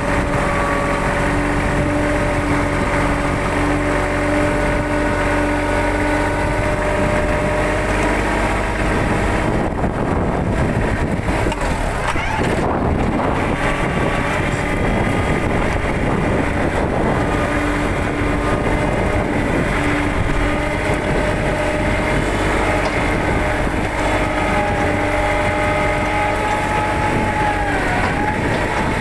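Vehicle engine running steadily, heard from on board, with a steady whine over it. The whine drops out for a few seconds about ten seconds in, then returns.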